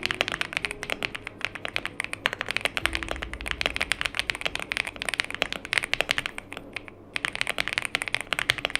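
YUNZII B75 mechanical keyboard being typed on quickly, a dense run of keystroke clacks with a short pause about seven seconds in.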